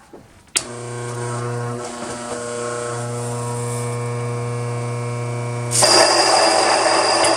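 Mockmill 100 electric grain mill switching on about half a second in and running with a steady motor hum. About six seconds in, a louder, rougher grinding noise joins it as wheat is milled at grind setting 7.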